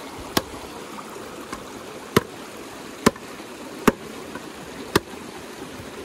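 Steady rush of a flowing stream, with five sharp knocks spread irregularly through it.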